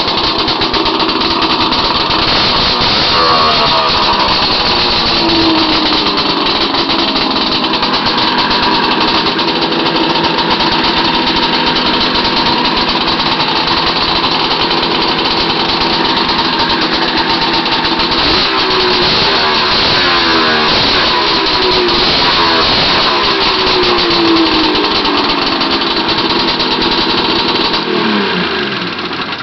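Arctic Cat ZRT600 snowmobile's three-cylinder two-stroke engine, breathing through aftermarket triple expansion-chamber pipes with stingers, running hard with its pitch rising and falling repeatedly, including several long falling sweeps. The sound drops away just before the end.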